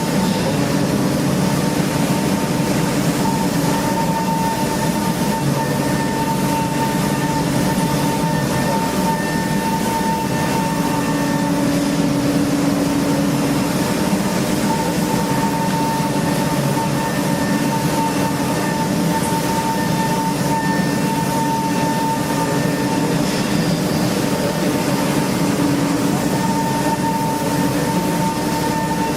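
CNC machining center running while it cuts an engine block: a steady mechanical roar with a steady whine that fades in and out every few seconds.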